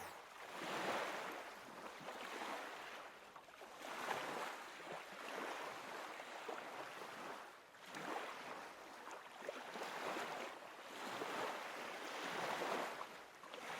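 Rushing, splashing water rising and falling in uneven swells.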